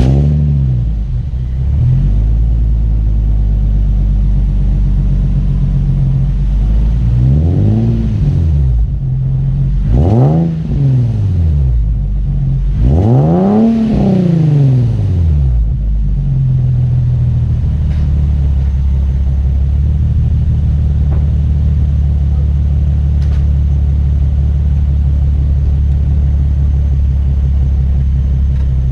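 Nissan 350Z's 3.5-litre V6 through an aftermarket dual exhaust, just started, its idle settling, then blipped three times, each rev rising and falling, the third the highest and longest. After that it idles steadily.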